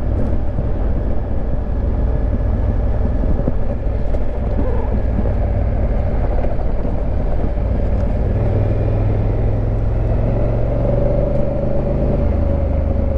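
2019 Honda Africa Twin CRF1000L's parallel-twin engine running steadily under way, heard with wind and tyre noise. The engine note grows stronger about eight seconds in and holds.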